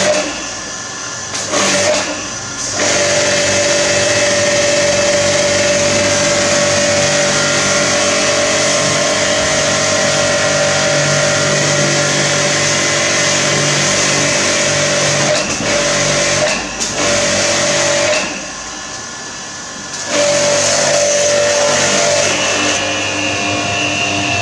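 StarQ W3 1800 W electric pressure washer, its induction motor and pump running with a steady humming whine while the high-pressure jet hisses against a scooter. The motor cuts out briefly a few times, for a couple of seconds around the middle, then starts again.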